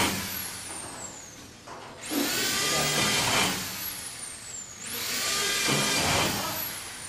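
Corded electric drill boring into the sheet-metal trim of a prefab wall panel. Twice it spins up fast, runs for about a second and a half under load, and winds down with a falling whine. The whine of an earlier run dies away at the start.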